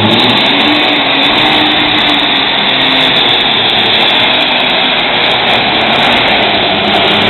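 John Deere pulling tractor's engine at full throttle under load during a sled pull: a loud, steady, dense noise in which a faint engine note rises over the first few seconds.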